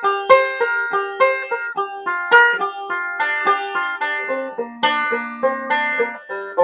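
Five-string resonator banjo picked note by note in a slow chromatic scale, stepping back down the neck, each string struck with a firm punch. A lower note rings on for about a second near the end.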